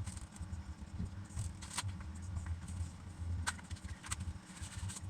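A few separate sharp plastic clicks from hands working on a Razer BlackWidow X Chroma mechanical keyboard, over a low hum.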